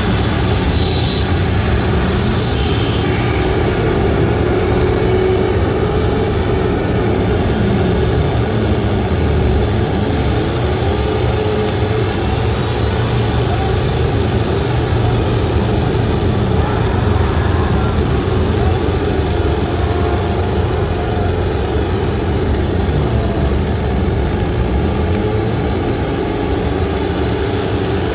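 Harsh noise music played live on electronics: a loud, unbroken wall of distorted noise with a heavy low rumble and hiss on top. A few gliding tones sweep up and down through it in the first dozen seconds.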